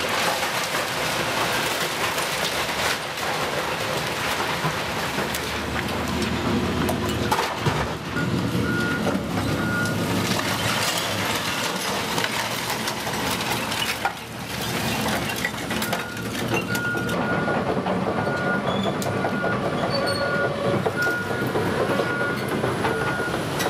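Caterpillar 328C excavator demolishing a brick and stone building: its diesel engine and hydraulics work steadily while the bucket tears at the walls, and masonry and timber fall in repeated knocks and clatters. A short high beep repeats evenly for a couple of seconds about a third of the way in, and again through much of the second half.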